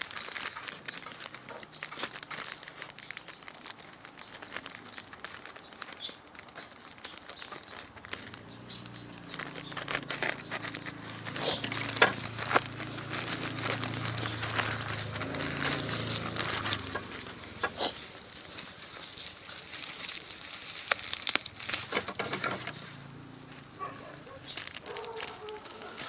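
Plastic packaging crinkling and tearing, with frequent clicks and knocks of handling, as a parcel is unpacked.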